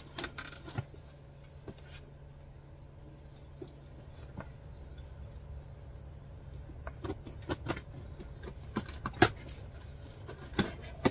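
Cardboard box wrapped in packing tape being torn open by hand: irregular crackles, rips and knocks of tape and cardboard, busiest in the second half, over a steady low hum.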